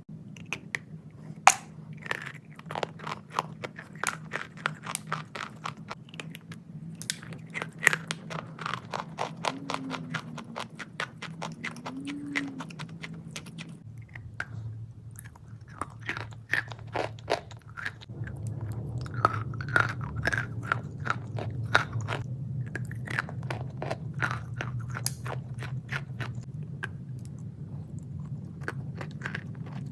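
Close crunching and chewing of a wet, crunchy 'Mega Premium' product: many quick, irregular crisp crackles, one after another, over a steady low hum.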